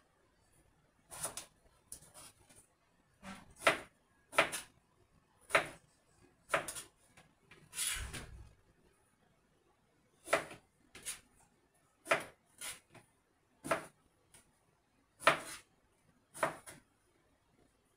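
Kitchen knife cutting eggplant on a plastic cutting board: single sharp knocks of the blade on the board roughly once a second, with one longer rasping stroke near the middle followed by a short pause.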